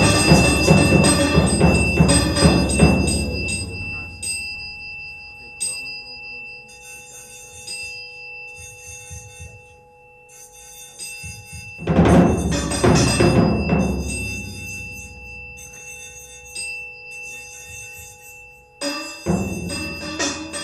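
Improvised electronic music with live percussion. A dense, loud wash dies away over the first three seconds into held tones and a stuttering high electronic flutter. A loud percussive swell rises about twelve seconds in, and another comes near the end.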